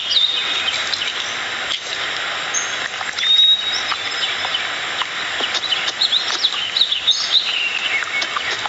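Small birds chirping again and again in short rising and falling calls, with one longer held note about three and a half seconds in, over a steady outdoor background hiss.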